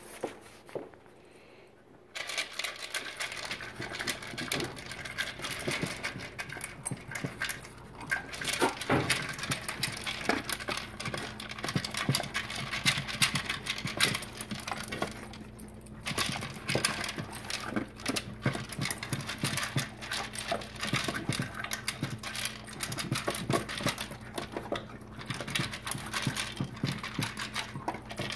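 Two dogs eating from plastic slow-feeder maze bowls: quick, irregular clicking and rattling of food and muzzles against the plastic ridges, starting about two seconds in.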